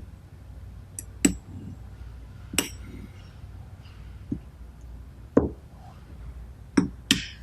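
Steel parts of a thread rolling attachment clinking and tapping as a bushing is fitted back in over the roll gear: about seven sharp metallic clicks spread out, with a close pair near the end.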